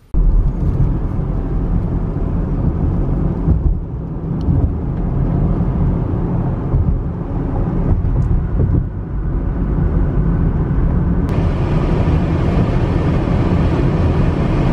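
Car driving along a road: a steady low rumble of engine and tyre noise, turning brighter and hissier about eleven seconds in.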